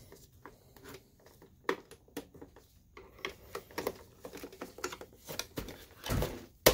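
Small clicks and scrapes of a screwdriver and gloved hands handling a plastic projector housing, with a louder knock near the end as the projector is shifted and turned over.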